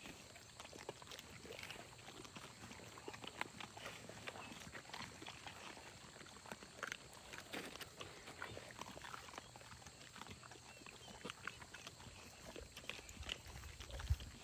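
Several young mastiffs chewing raw chicken, a faint irregular patter of crunches, snaps and licks. One louder low thump comes near the end.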